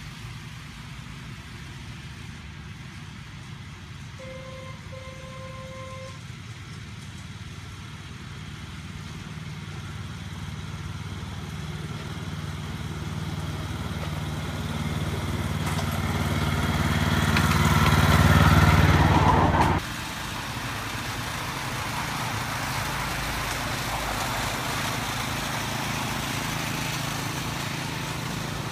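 A small engine-driven miniature railway locomotive approaching, its engine running steadily and growing louder as it nears. About four seconds in its horn gives a short toot and then a longer one. About two-thirds of the way through the engine sound cuts off abruptly, giving way to a steadier, quieter running sound.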